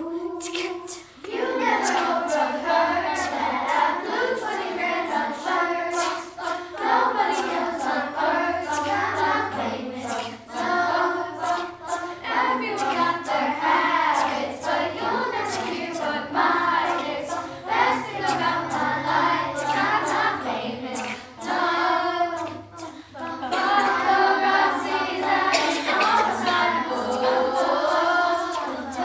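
Children's choir singing a pop song a cappella, with sharp clicks keeping the beat. The singing dips briefly twice, about a second in and about three-quarters of the way through.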